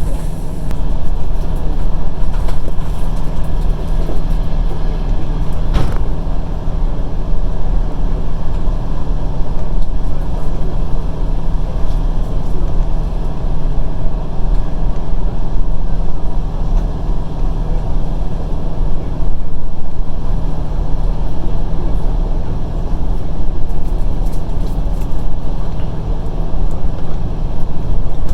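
Passenger train running along the line, heard from inside the carriage: a steady, loud low rumble of wheels on rails, with a single sharp knock about six seconds in.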